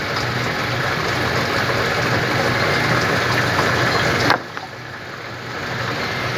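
Tap water running into a stainless-steel kitchen sink, cut off suddenly about four seconds in and running again near the end, over a steady low hum.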